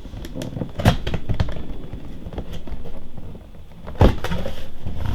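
Cardboard box being opened and its contents handled: rustling and scraping with a few sharp knocks, the loudest about a second in and another near the end.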